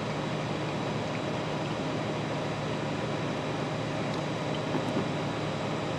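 Steady mechanical background hum and hiss with no distinct events.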